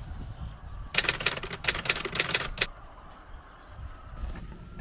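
A quick run of sharp clicks and taps lasting under two seconds, over a low rumble.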